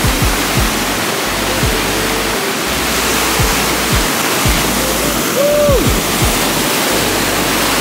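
Background music with deep bass notes, over a loud steady rush of ocean surf.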